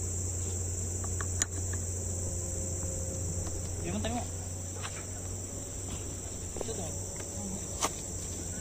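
A steady, high-pitched insect chorus, with a low steady hum underneath. Two sharp clicks stand out, one about a second and a half in and one near the end.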